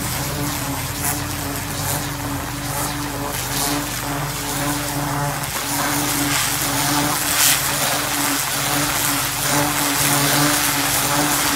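Pressure washer running steadily, its motor and pump humming while the high-pressure jet sprays into loose soil with a hissing, spattering noise.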